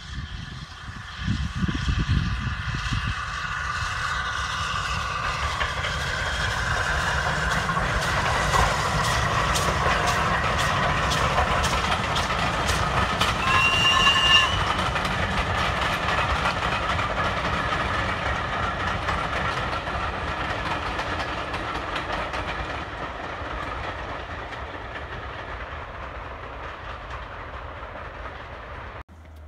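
Steam-hauled passenger train passing. A rumble and the clicking of wheels over rail joints build to their loudest about halfway through, with a short high tone at the peak, then fade slowly away.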